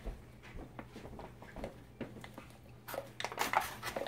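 Plaster-like mould mix being stirred by hand in a tub: faint scattered scrapes and taps, then louder rustling and scraping from about three seconds in.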